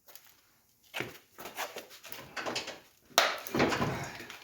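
A tire being handled onto the rim on a tire-changing machine: a few light knocks and rubbing of rubber against metal, then a louder thud about three seconds in followed by a second of scraping.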